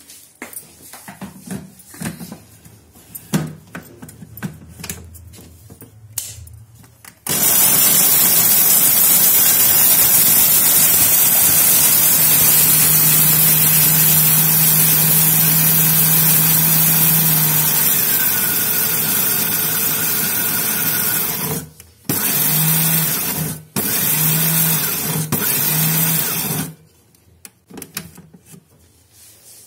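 Electric mixer grinder grinding roasted black cardamom pods to a coarse powder. A few knocks and clicks come first; about seven seconds in the motor starts suddenly and runs loud and steady for about fourteen seconds, stops briefly, then runs in two short bursts before cutting off.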